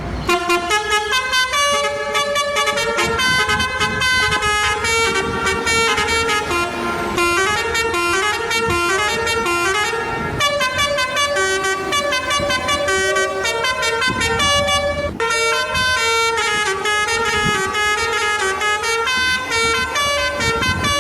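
Indonesian bus 'telolet' horn (Basuri type), a set of musical air horns, playing a quick tune: several notes sound at once and step rapidly up and down, in phrases separated by short breaks.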